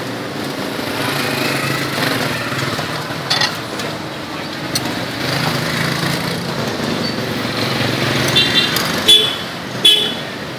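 Street traffic noise from passing motorbikes and cars, with two short horn toots near the end and a few sharp knocks.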